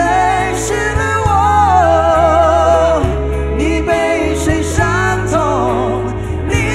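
Two men singing a Mandarin pop ballad live over a band, with long held notes that waver, and a steady bass underneath.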